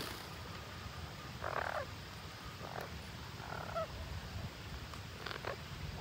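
Parakeets giving four short, rough calls about a second apart, over a low rumble.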